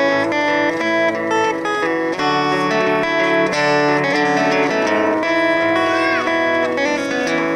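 Steel-string acoustic guitar strummed and picked, playing the opening bars of a folk song with chords changing about every second.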